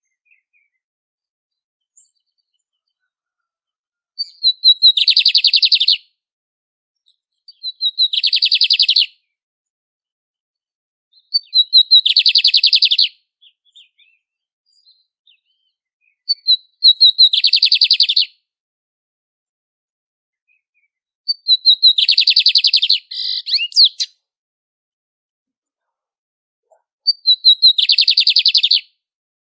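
Lined seedeater (bigodinho) singing: six songs, one every four to five seconds with silence between. Each opens with a few quick high notes and runs into a fast, rattling trill lasting about a second and a half.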